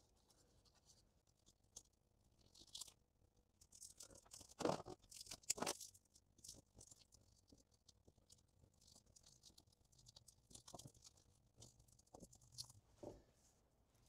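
Faint, scattered scratching and crinkling as butyl sealant tape and its paper backing are wrapped and pressed around a wiring connector by hand, loudest in two brief scrapes about five seconds in.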